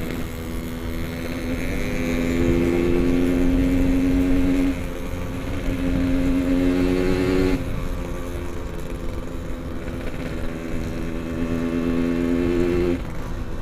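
Yamaha RX-King two-stroke single-cylinder motorcycle engine running while riding, with wind rumbling on the microphone. Its note holds steady, then drops a step about five seconds in, again near seven and a half seconds, and once more near the end as the throttle changes.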